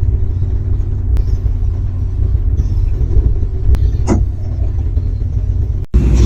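Loud, steady low rumble with a faint hum over it; it cuts off abruptly near the end.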